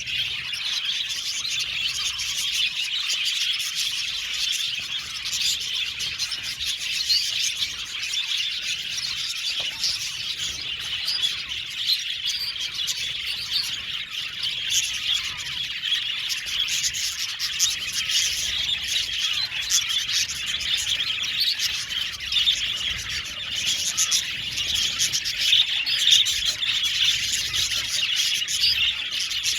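A flock of budgerigars chattering and chirping together, many birds at once in a constant, overlapping warble.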